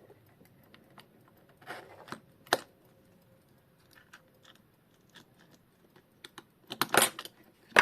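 Small clicks, taps and scrapes of hands and tools working a small circuit board loose from a quartz clock movement, with sparse sharp clicks and a louder cluster of clicks about seven seconds in.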